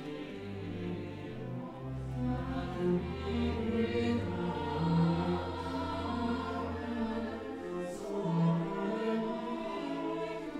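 Mixed choir singing slow sustained lines in Dutch with an orchestra, low strings holding long bass notes beneath.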